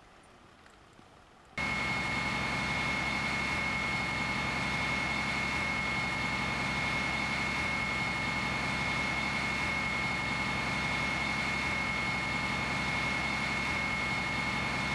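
Fire engine running steadily: a low engine drone with a constant high whine over it, starting abruptly about a second and a half in after a near-silent moment.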